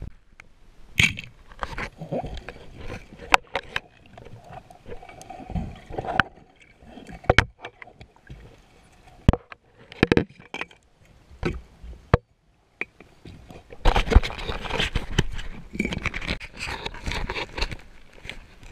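Underwater camera picking up irregular knocks, clicks and scrapes as it is handled and bumped about while the diver moves close to rocks, with a denser, louder stretch of scraping and water noise from about fourteen seconds in.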